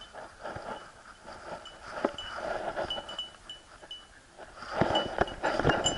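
Metal dog tags jingling on a collar with each stride, over paws rustling and crunching through dry leaf litter. The rustling grows louder and busier about two thirds of the way in.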